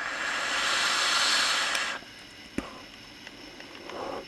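Long airy hiss of a vape draw through the OBS Engine Nano single-coil rebuildable tank with its top airflow open. The hiss cuts off sharply about two seconds in, and a single click follows.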